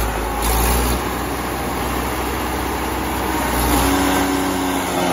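Sonalika tractor's diesel engine running steadily under load as it drives a tractor-mounted forage harvester cutting green maize: a continuous engine drone mixed with the machine's clatter. A steady higher hum joins about four seconds in.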